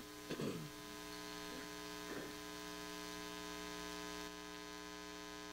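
Steady electrical mains hum with a ladder of overtones, with a few faint short sounds in the first two seconds.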